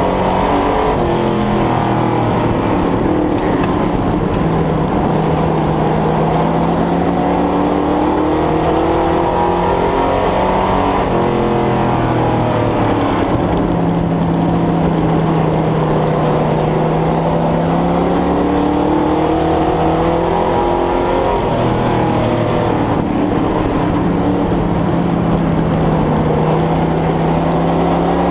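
Vintage dirt-track race car's engine running hard under racing load, heard from on board. Its pitch holds steady for long stretches and twice drops, then climbs back as the revs come up again.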